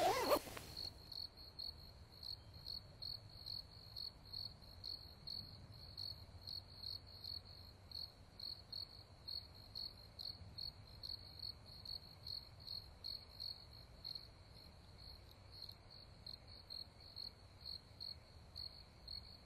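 A cricket chirping steadily, short high chirps at one pitch, about two a second, faint. A brief louder sound in the first half-second marks the end of the music.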